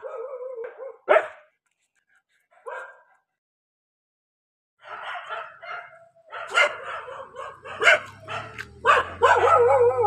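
Dog barking: a drawn-out whine, then two sharp barks, a short break, then repeated rapid barking. A low steady hum runs underneath in the second half.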